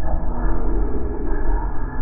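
Steady low rumble of a vehicle driving on a paved road, heard from inside the cabin, with faint held tones over it that change pitch about halfway through.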